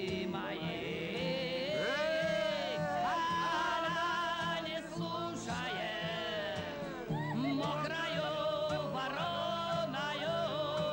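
A man singing a slow Russian song in long, wavering notes over guitar and a sustained low chord that changes about seven seconds in.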